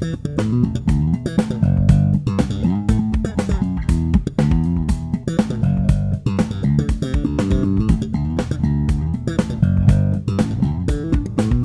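Custom six-string neck-through electric bass with EMG 45J pickups, played fingerstyle in a busy, fast run of plucked notes that moves continually in pitch, with crisp string attacks.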